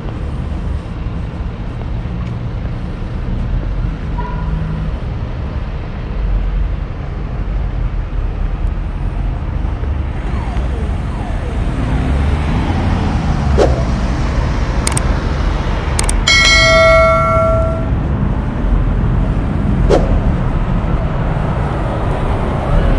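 City street traffic, a steady low rumble of passing vehicles. About two-thirds of the way through, a single bell-like chime rings for about a second and a half, with a few sharp clicks around it.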